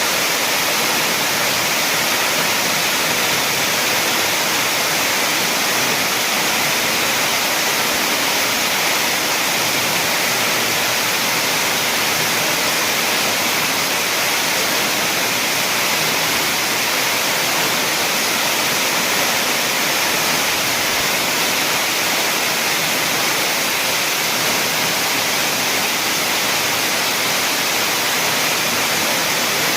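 Waterfall: water falling and splashing in a steady, loud rush with no change.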